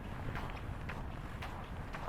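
Footsteps of a person walking at a steady pace, about two steps a second, over a steady low rumble.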